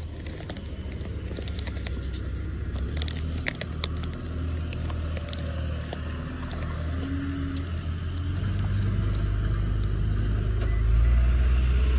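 Car running with a steady low engine and road rumble, growing louder about two-thirds of the way through.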